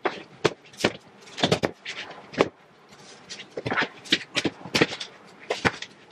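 Irregular knocks, clacks and rattles, about a dozen spread unevenly, from a folding massage table being handled and set up.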